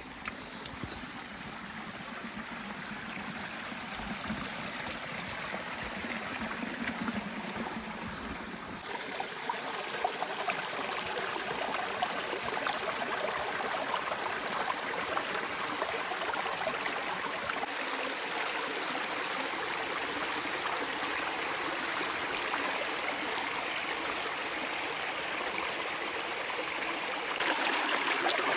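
Rushing water of the Little Mashel River, a steady hiss of flowing water that grows gradually louder, with two clear steps up in level, about a third of the way in and near the end.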